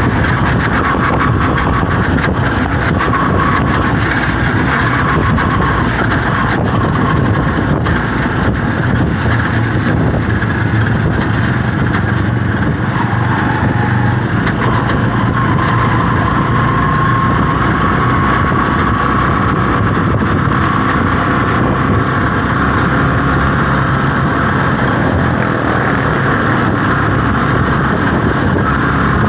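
Vehicle engine running steadily while moving, mixed with wind and road noise heard from an open-sided passenger cab.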